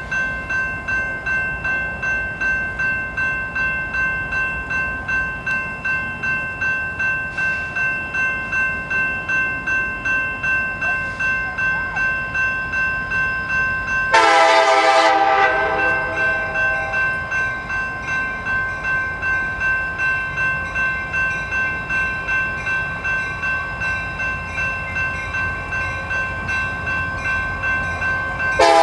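A grade-crossing bell rings steadily, about twice a second, over the low rumble of an approaching CSX freight train. About halfway through, the lead locomotive's air horn sounds one loud blast of about a second and a half.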